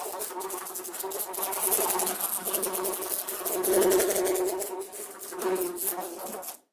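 A housefly buzzing: a wavering hum that swells and fades as the fly moves about, loudest about four seconds in. It starts and cuts off abruptly.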